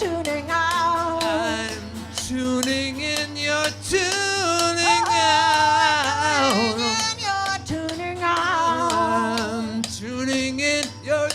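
A woman singing a wavering, held melody over rhythmic strummed guitar in a live duo performance.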